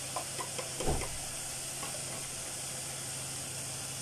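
Handling of a plastic container and spoon: a few light clicks and one louder knock about a second in, over a steady hiss.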